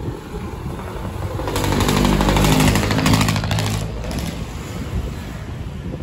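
A motorcycle engine passing close by, rising to a peak about two to three seconds in and fading, with a rapid pulsing exhaust note.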